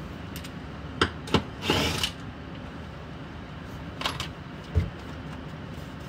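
Handling noise from a cordless driver fitted with a 7mm socket: two sharp clicks about a second in, a short scraping rush just before two seconds, another click around four seconds and a dull thump near five seconds.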